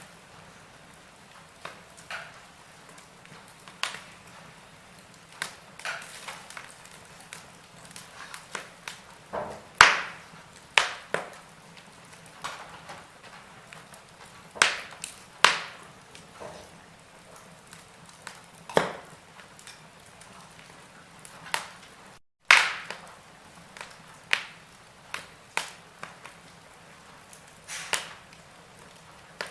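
Wood fire in a fireplace crackling: irregular sharp pops and snaps of varying loudness over a soft hiss of flame. The sound cuts out for an instant about three quarters of the way through.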